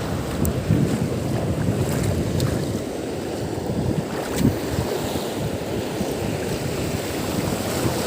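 Wind buffeting the microphone, a steady uneven rumble, over the wash of waves, with a few faint ticks.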